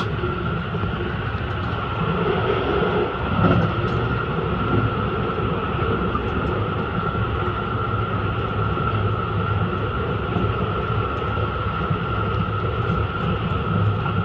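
Haruka airport express train running at speed, heard from inside the passenger car: a steady low rumble with a constant high whine over it and a few faint ticks.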